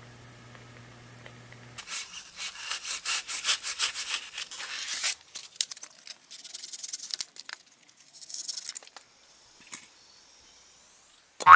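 A knife sawing back and forth through a Styrofoam block, a run of rasping strokes about three a second for a few seconds, then two shorter runs. The foam mold is being cut open around the cured epoxy casting.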